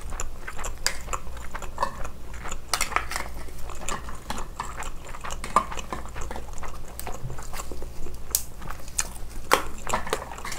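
Close-miked eating sounds: chewing spicy steamed scallop, with scallop shells clicking and scraping against each other and against a glass baking dish in irregular short knocks.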